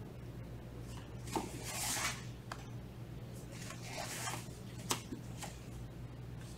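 Soft rustling and sliding of a person shifting position on a martial-arts floor mat: two brief swishes, about a second and a half in and about four seconds in, each with a light tap, over a steady low hum.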